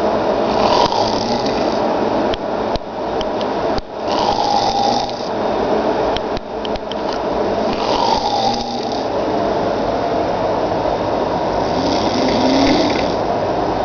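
A sleeping man snoring, one breath cycle roughly every four seconds, four in all.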